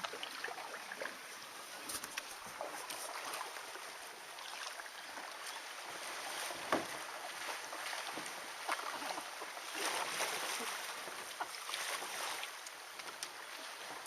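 Rushing water of creek rapids, a steady hiss, with a few sharp knocks, the loudest about halfway through.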